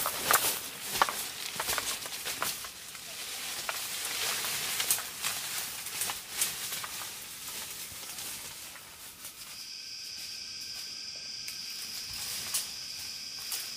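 Rustling and crackling in dry undergrowth with many sharp snaps and clicks. About nine seconds in, a steady high-pitched drone sets in and holds.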